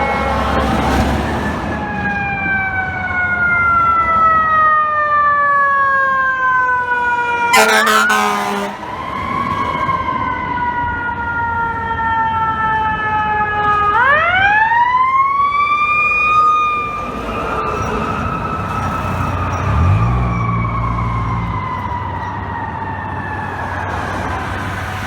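Fire truck siren slowly winding down in pitch, then sharply winding up again about halfway through and coasting down slowly. A short air horn blast sounds about 8 seconds in, and another low horn blast comes around 20 seconds in.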